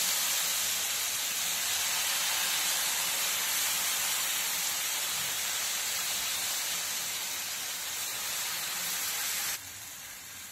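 Thin jowar-flour batter sizzling on a hot oiled tawa as it is ladled on, a steady hiss that drops sharply near the end.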